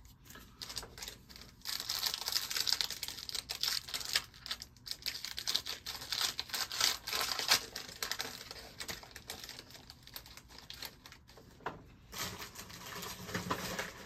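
Foil wrapper of a trading-card pack crinkling and tearing open, a dense run of crackles and rustles that thins out after about nine seconds and picks up again near the end.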